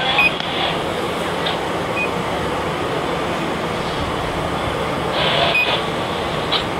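Steady engine drone of a fire engine running its pump, with a few faint clicks.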